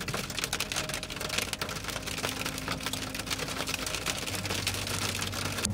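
Heavy rain falling, the drops striking close by in dense, irregular sharp ticks over a steady hiss.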